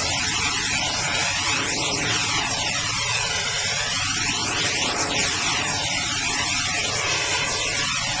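Steady rushing of a fast, white-water river, with a whooshing sweep that rises and falls every second or two, like a jet passing over.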